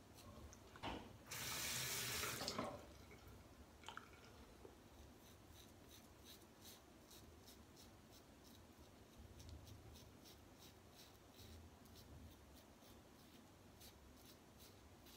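Water runs from a tap for about a second and a half, a second or so in, with a few knocks around it. Then a Gillette Fatboy double-edge safety razor with a Treet Platinum blade scrapes through two-day stubble in a long run of faint, short strokes.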